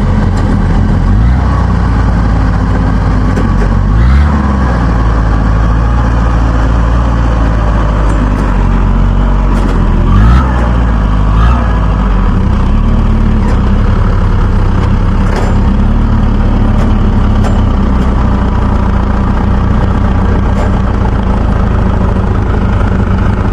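Rice combine harvester's diesel engine running steadily and loudly, its pitch dipping and recovering a few times as the load changes.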